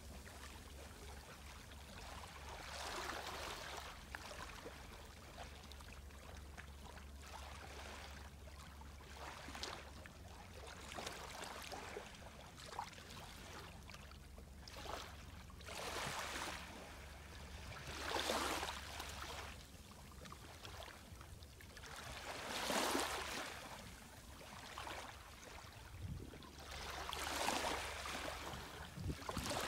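Small, gentle waves lapping onto a sandy beach from a calm, glassy sea: a soft wash and hiss every few seconds, some washes louder than others.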